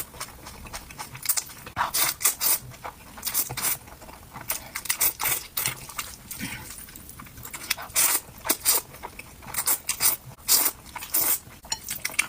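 Close-miked ASMR eating of spicy noodles and kimchi: wet chewing and mouth smacks, with irregular sharp clicks several times a second and a few longer bursts.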